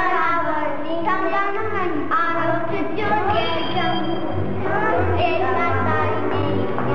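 Children singing a song over music.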